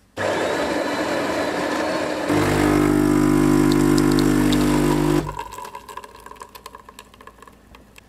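Bean-to-cup coffee machine brewing: about two seconds of grinding, then a steady pump hum for about three seconds, then a much quieter trickle of coffee running into a ceramic mug.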